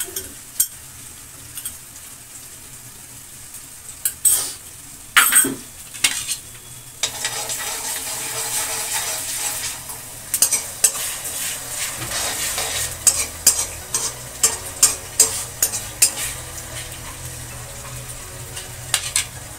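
Chopped onions and ginger-garlic paste sizzling in hot oil in a kadhai, stirred with a metal spatula that scrapes and clinks against the pan. The sizzling grows louder about seven seconds in, and the spatula clinks come often through the second half.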